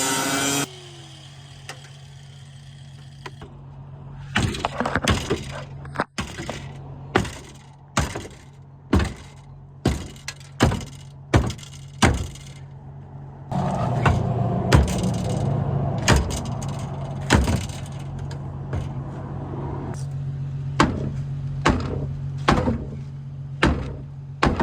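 A power tool's cutting noise stops just after the start; then a long series of hard knocks, roughly one a second, as the rear of the car body is struck to break parts off, over a steady low hum.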